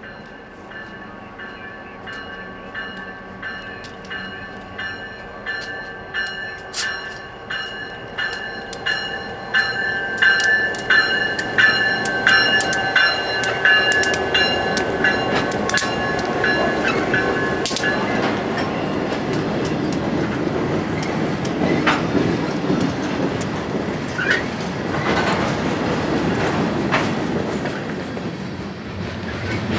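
Nittany & Bald Eagle freight train, led by an EMD GP20 and GP8 diesel pair, approaching and passing close by. The locomotives' steady engine tones grow louder, with wheels clicking over rail joints as they go by. After that a string of covered hopper cars rolls past with a steady rumble.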